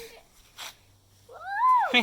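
A child's high voice whooping, gliding up in pitch and falling away, near the end, the start of a "woohoo!"; a brief soft scuff about half a second in.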